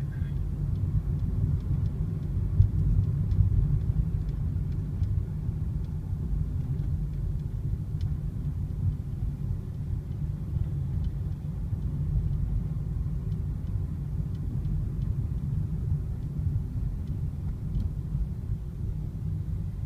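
Steady low rumble of a car's engine and tyres, heard from inside the cabin while driving along a city street.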